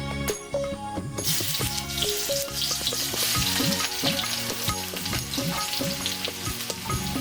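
Food frying in a hot pan: a loud sizzle starts suddenly about a second in and keeps going, over background music.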